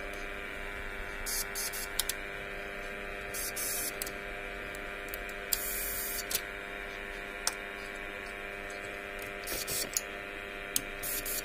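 Aerosol contact cleaner hissing in about five short squirts into the receiver's push-button switch banks to clean their contacts, with a few sharp clicks, over a steady electrical hum.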